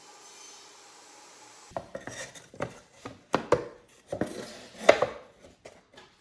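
Wooden parts and tools being handled and set down on a workbench: a run of irregular knocks and clatters starting a couple of seconds in, the loudest near five seconds, after a faint steady hiss.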